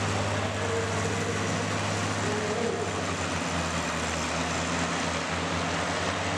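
Combine harvester engines running steadily as the machines drive slowly past, a constant low engine drone with no revving.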